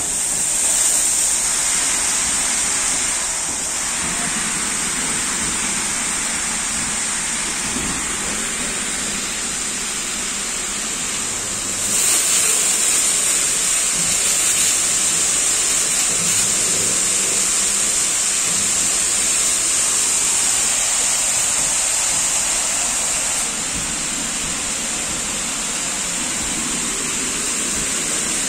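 Automatic rollover car wash spraying water and foam over a car: a steady, loud hiss of spray jets. It gets louder about twelve seconds in and eases again near the end, with a faint low machine hum underneath in the middle stretch.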